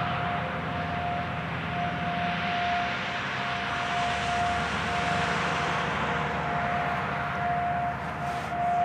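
Federal Signal 2001-SRN rotating electromechanical tornado siren sounding its steady Alert tone, one pitch that swells and fades every couple of seconds as the rotor turns, over a steady rushing noise.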